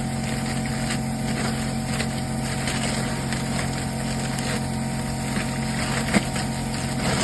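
Steady motor hum, with a few faint clicks of handled parts or tools.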